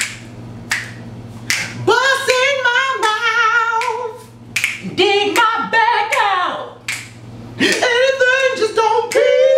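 Unaccompanied high singing voices holding long, wavering notes, broken by short gaps, with sharp clicks between the phrases.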